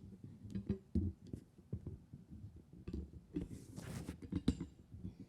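Microphone handling noise as something on the speaker is adjusted: soft low thumps, clicks and rubbing, with a brief rustle about four seconds in.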